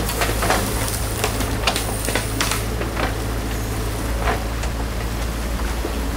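Mini excavator's diesel engine running steadily as the machine swings its boom and bucket out over a stream, with scattered clicks and knocks. The steady rush of fast-flowing stream water sits underneath.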